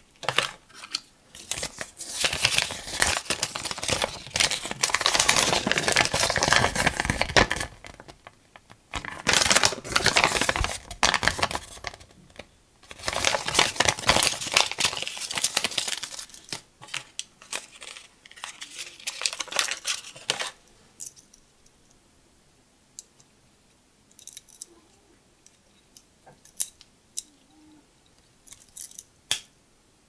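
Cardboard box and paper packaging being handled: rustling, crinkling and sliding in three long spells through the first twenty seconds. After that it goes quiet apart from scattered light clicks and taps as the knife is handled.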